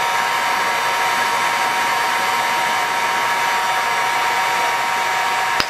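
Heat gun running steadily, blowing hot air: a rush of air with a steady high whine. A brief click near the end.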